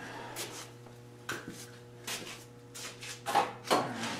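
Scattered short rubs and knocks, as of things being handled, over a steady low hum; the two loudest knocks come about three and a half seconds in.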